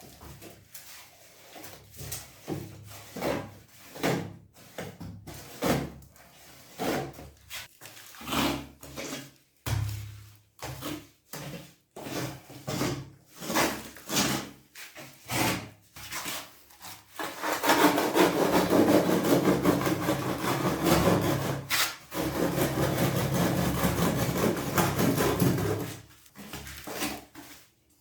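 Work noise, rubbing or scraping on a hard surface: a long run of short strokes, one or two a second, then a continuous louder rasping for about eight seconds from partway through, before a few more strokes near the end.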